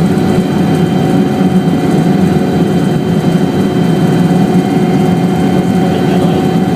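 Helicopter engine and rotor running: a loud, steady drone with several constant whining tones over it.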